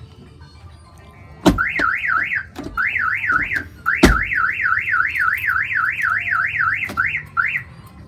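Aftermarket car alarm siren warbling rapidly up and down, about four sweeps a second. It comes in several bursts with short breaks, starting about a second and a half in, as the newly installed alarm is tested. A sharp clunk opens each of the two longest bursts.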